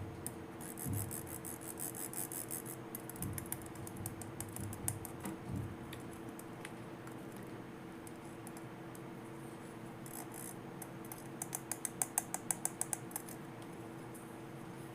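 Small plastic toy pieces and packaging being handled: scratchy rustling at first, then a quick run of about ten sharp clicks near the end, over a faint steady hum.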